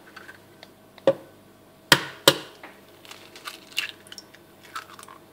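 A raw egg cracked and dropped into a glass bowl: a few sharp clicks and knocks, the loudest two close together about two seconds in, then a soft wet plop as the egg slides in.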